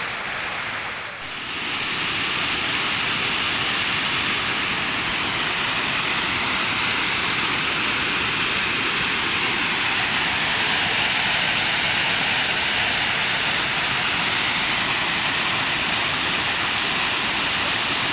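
Waterfall: a steady, loud rush of falling water, with a short dip about a second in.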